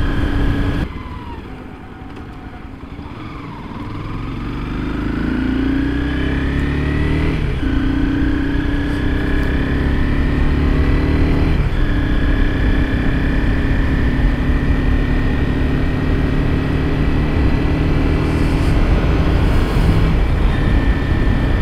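Honda CBR250R single-cylinder engine heard from the saddle while riding, with road and wind noise. The engine pitch climbs, drops sharply twice as the rider shifts up, climbs again each time, then settles into a steady cruise.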